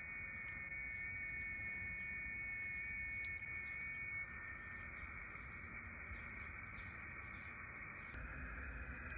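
HF receiver's audio output on the 7 MHz amateur band: steady band noise with a few faint steady tones of weak signals, cut off sharply at the top by the receiver's filter. About eight seconds in the noise changes and grows louder as the coax switch moves the receiver from one antenna to the other.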